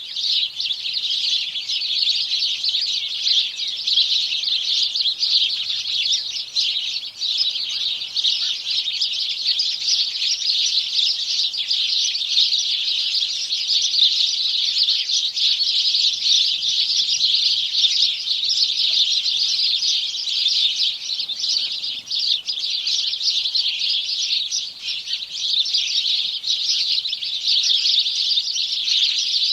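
A chorus of house sparrows chirping, many birds calling over one another without a break.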